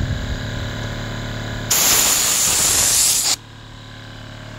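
Compressed-air blow gun blasting filings out of a chainsaw bar's groove: one loud hiss of about a second and a half, starting a little under two seconds in and cutting off suddenly. Underneath, the steady hum of the running air compressor.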